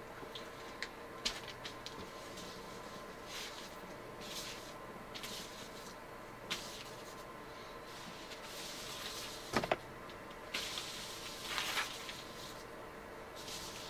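Rag wiping paint stripper onto a spray-painted wooden rifle stock laid on newspaper: soft intermittent rubbing and paper rustling with small clicks, two quick sharp knocks about two-thirds of the way through, then a longer spell of heavier rubbing.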